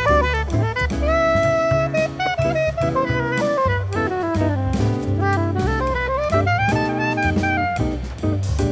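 Jazz band recording: a winding lead melody with held notes and slides over bass and drum kit, cymbals ticking steadily throughout.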